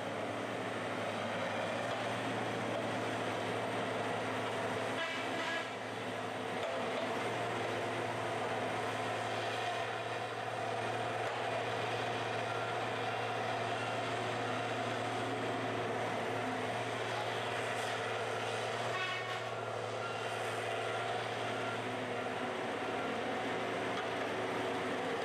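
Wheeled feller buncher's diesel engine running steadily under load, a deep, even drone, as the machine works into a bamboo stand. A few short bursts of crackling come about five seconds in and again past the middle, as bamboo stalks are cut and break.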